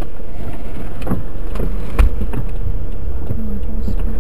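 Steady low rumble of a car driving on a wet road, heard from inside the cabin, with a few sharp clicks, the loudest about two seconds in.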